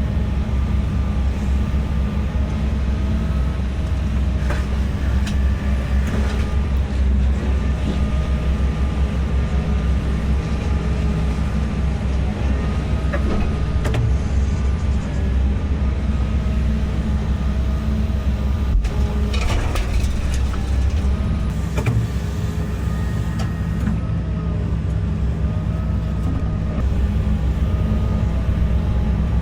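Heavy diesel engine of a construction machine running steadily, a deep drone with a faint wavering whine above it and a few brief clatters.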